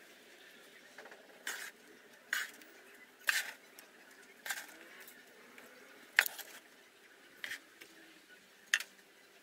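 Moulding sand being scooped from a sand bin with a metal hand trowel and dropped into a wooden moulding flask: seven short, gritty scrapes and taps, roughly one a second, as the flask is filled.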